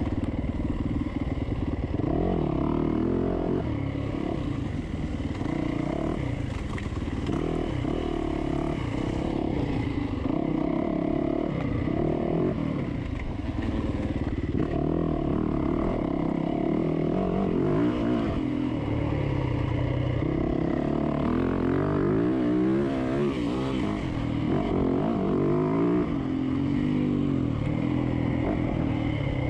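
Dirt bike engine heard from on the bike, its pitch rising and falling constantly as the throttle is worked and the gears change while it is ridden hard over an off-road trail.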